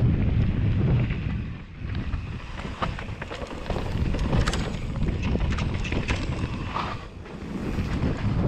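Wind buffeting a GoPro action camera's microphone during a mountain bike descent, with a low rumble and sharp clicks and rattles from the bike over rough ground. The wind eases briefly about two seconds in and again near the end.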